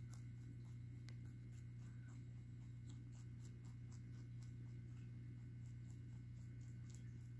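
Pet rabbit chewing a sprig of cilantro: faint, crisp crunching clicks, several a second, over a steady low hum.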